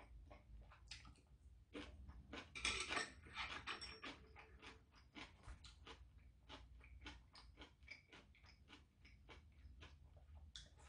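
A person chewing food with the mouth closed: a quiet, steady run of small wet mouth clicks, busier for a moment about two to three and a half seconds in.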